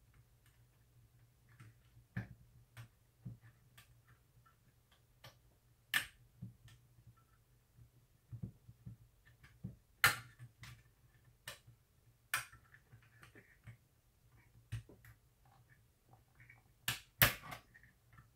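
Scattered, irregular clicks and taps of a screwdriver and a plug-in module against the metal chassis of a PRC-77 military backpack radio as a replacement transmitter mixer module is worked into place. A few clicks stand out sharper, the loudest near the end.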